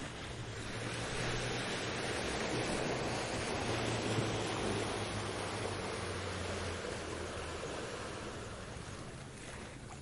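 Ocean waves breaking and washing up a beach: one long swell of surf that builds over the first couple of seconds and slowly fades away near the end.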